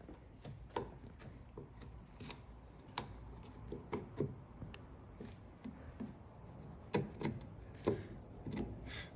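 18 mm bevel-edge chisel cutting the waste out of a through dovetail in timber, a little at a time: irregular short, sharp taps of steel into wood, about one a second, bunched in places.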